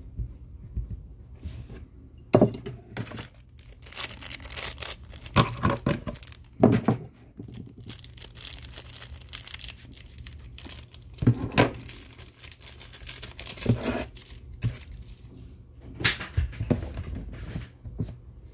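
Plastic wrapping and moulded plastic packaging crinkling and rustling in irregular bursts, with a few sharp knocks, over a steady low hum.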